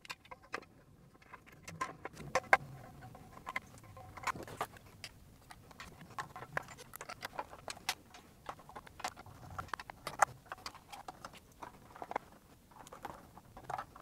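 Irregular light clicks and taps of a portable air compressor's plastic housing and fittings being handled while its back cover is put back on and wires are threaded through it.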